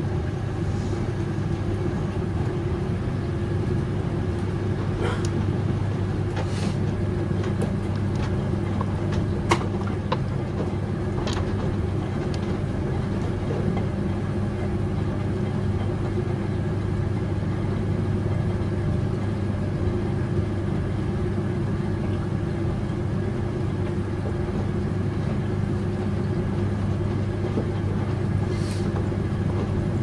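Front-loading washing machines running a quick wash, drums tumbling wet laundry with a steady motor hum and a few short clicks of items knocking against the drum.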